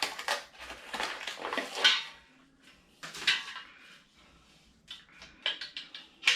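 Handling noise from assembling a flat-pack bed: rustling packaging and light metallic clinks and clatter of parts and hardware, in irregular bursts, with a quick run of sharp clicks near the end.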